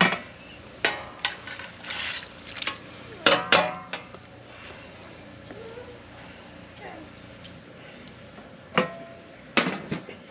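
Aluminum sheet pan and enamelware pot lid being handled: scattered metallic clanks and knocks, several ringing briefly, as pulled chicken is scraped from the pan into a pot of broth. The loudest are a pair about three and a half seconds in and a clatter near the end, over a steady hiss.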